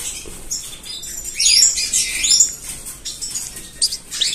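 Nestling finches (canary chicks and a goldfinch chick in a nest cup) begging with rapid, high-pitched cheeps while being fed from a syringe. The calls come in clusters, busiest from about one to two and a half seconds in.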